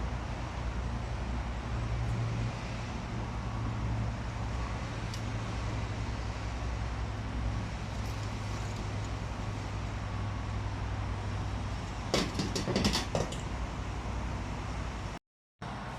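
A steady, low engine drone, with a short run of sharper knocks or clatter about twelve seconds in. The sound cuts out for a moment near the end.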